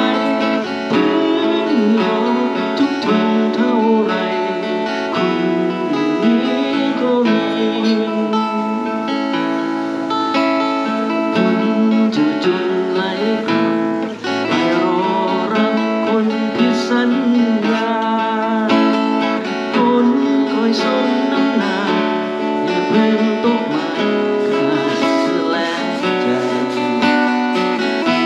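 Acoustic guitar played live, strummed and picked, with a flowing melody over it.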